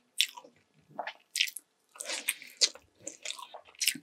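Close-miked eating: a person biting and chewing sauced sweet and sour chicken leg, a run of short, irregular mouth sounds about every half second.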